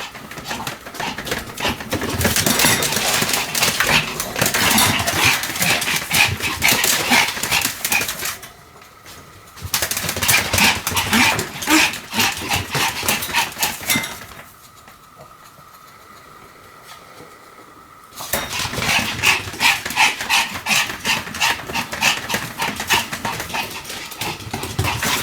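Pomeranian barking and yapping excitedly in fast runs of short calls, with a brief pause about a third of the way in and a longer pause past the middle.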